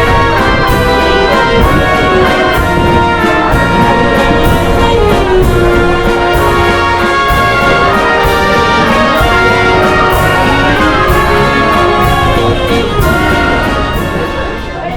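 Orchestral music led by brass, trumpets and trombones, with held chords over a steady beat; it dips briefly at the very end.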